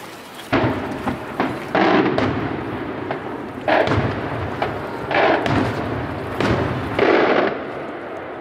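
Maltese aerial firework shells (murtali) bursting overhead: about six sudden bangs, each trailing off over about a second.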